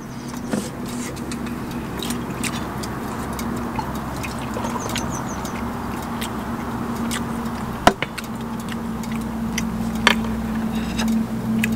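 Beer poured from a can into a cup, a fizzy rush that ends about seven seconds in, over a steady low hum. A few sharp clinks and clicks come as the can and bottles are handled.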